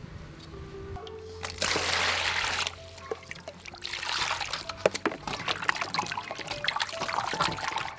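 Water poured into an aluminium basin for about a second, then hands splashing and rubbing peeled beetroots in the water, with background music playing throughout.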